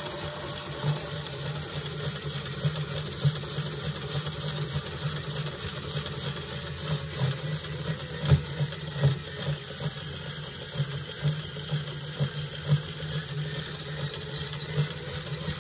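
All-metal model turbofan engine's motor-driven fan spinning fast when throttled up: a steady rush of moving air with an irregular crunchy rattle and a few louder ticks, which comes from fan blades that fit together loosely, not from real grinding in the ball bearings.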